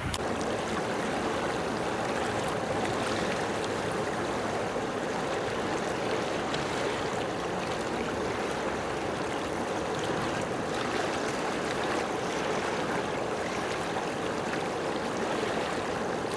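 Steady rush of moving water, an even hiss with no separate splashes or calls.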